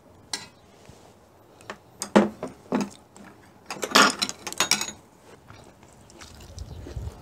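Tableware clattering: a serving utensil clinking and scraping against the pan and plates, then spoons and chopsticks clinking against ceramic rice bowls. A sharp clink comes first, then bunches of clinks about two and four seconds in.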